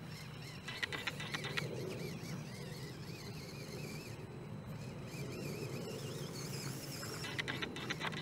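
Mini RC rock crawler's stock 130 brushed motor and two-speed gear drive running with a steady whine while it climbs, with clusters of rapid clicks from the tyres and drivetrain on stone about a second in and again near the end.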